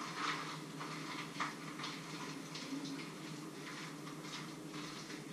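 Kitchen handling noises: short rustles and light clicks as hands work with a wrapper and utensils, over a steady low hum.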